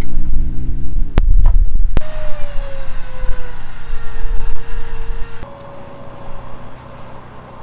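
Electric recovery winch whining under load, its pitch sagging slowly as the pull tightens, then a quieter, slightly higher whine near the end. Before it, about two seconds of low vehicle engine rumble with two sharp clicks.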